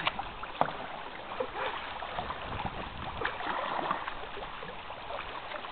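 Water splashing and lapping around a canoe, with scattered small knocks and clicks.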